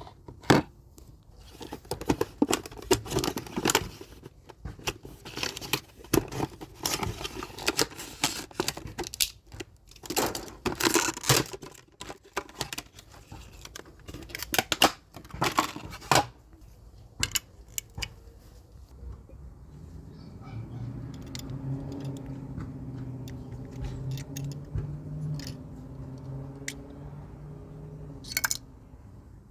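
Diecast model car packaging being opened and handled: tearing, crinkling and clicking of cardboard and plastic, dense for the first half. In the second half the handling thins to scattered clicks over a steady low hum.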